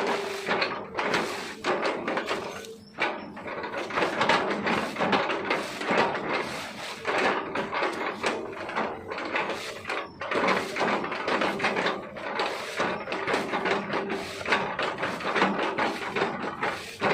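Hitachi ZX200-5G excavator chipping a felled oil palm trunk: a continuous dense crunching and cracking of the fibrous palm wood under the bucket, with a faint steady tone from the machine that comes and goes.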